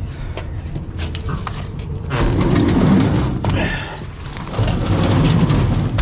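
Car batteries being grabbed and shifted across a metal checker-plate floor: scraping and knocking, loudest about two seconds in and again near the end, over a steady low rumble.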